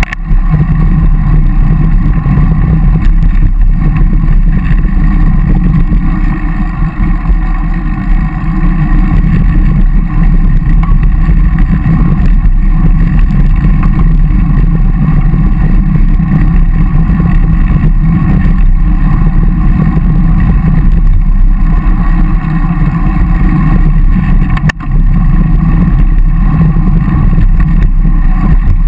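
Steady, loud wind rumble on the microphone of a bike-mounted action camera while riding in a group of road cyclists. There is a brief break a few seconds before the end.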